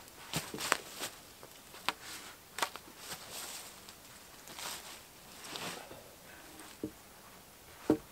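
Boots stepping and shuffling through dry fallen leaves and spruce boughs, rustling, broken by half a dozen sharp knocks, the loudest near the end.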